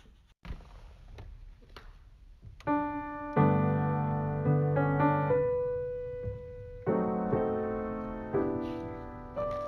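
Slow solo piano music, soft at first, then chords struck a few seconds in, each one fading away before the next.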